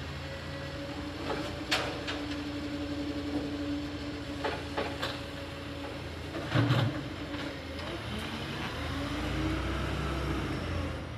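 Side-loading garbage truck collecting a wheelie bin: a steady whine from the running truck with sharp knocks as the arm works, and a heavy thump about six and a half seconds in. Near the end the engine pitch rises as the truck pulls away.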